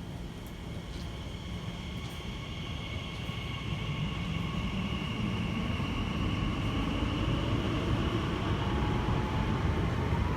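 Elizabeth line Class 345 electric train running in the underground station, its low rumble growing steadily louder over the stretch, with a steady high whine and a tone that slowly falls in pitch near the end.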